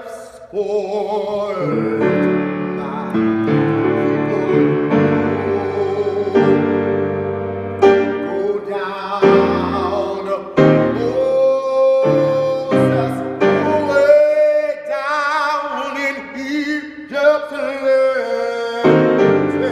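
A man singing while accompanying himself on a grand piano, holding long notes with vibrato over sustained chords.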